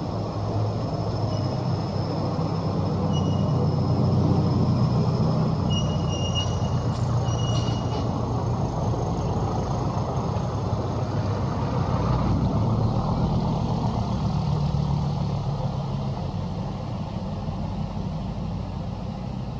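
A motor engine running with a steady low rumble that swells and then eases off, with faint high thin tones a few seconds in.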